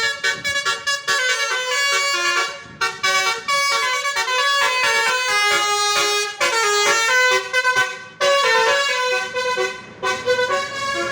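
Indonesian 'telolet' bus horn, a Basuri multi-tone horn, playing a quick melody of short, changing notes, broken by a few brief pauses.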